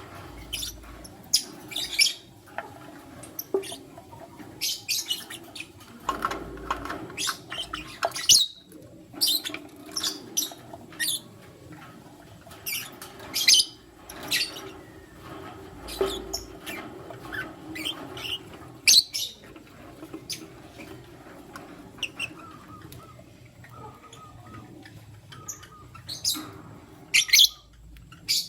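Lutino lovebirds chirping, short sharp high chirps coming irregularly, several close together at times.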